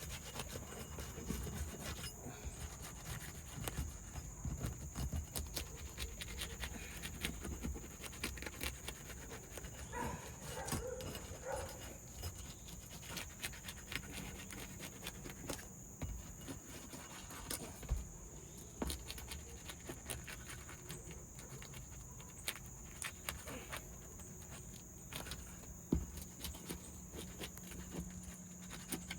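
Faint, irregular scraping and clicking of asphalt shingles being worked loose and slid back in with a roof snake, with a steady high-pitched tone behind it.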